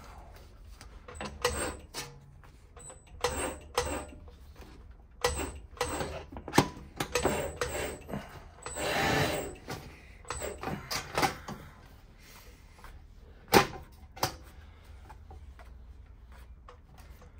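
Thin stainless-steel sheet cylinder being worked and shifted between the wheels of a swage-wheel (bead-rolling) machine: irregular metallic clanks and knocks, a longer scraping rub about nine seconds in, and the loudest single knock near fourteen seconds.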